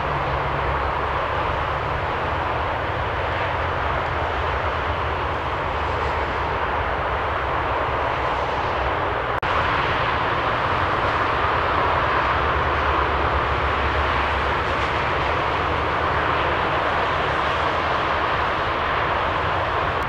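Steady noise of motorway traffic, with a low engine hum beneath it. It gets slightly louder after a cut about halfway through.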